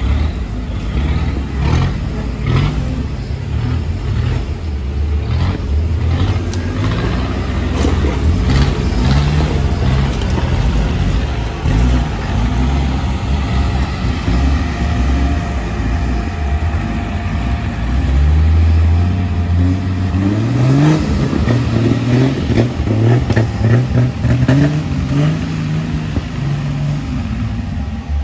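Off-road vehicle engine working under load over rough ground, its revs rising and falling again and again.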